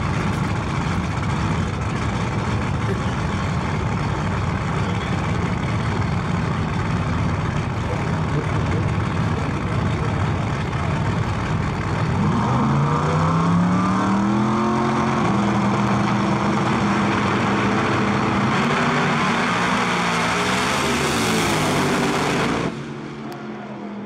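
Big-tire no prep drag cars, including a Ford Probe-bodied racer, running loud and rough at the starting line, then launching on a full-throttle pass about halfway through, engine pitch climbing and stepping through the gears. The sound cuts off suddenly near the end.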